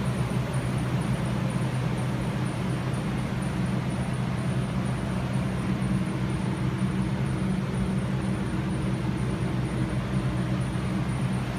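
Steady low hum with an even background rush, unchanging in level or pitch: the background ambience of a large building.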